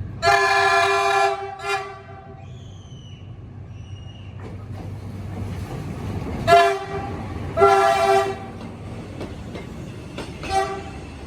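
Horn of the D10H diesel locomotive D10H-023 sounding five blasts: a long and a short near the start, then a short, a long and a short. A steady low rumble of the moving freight train runs underneath.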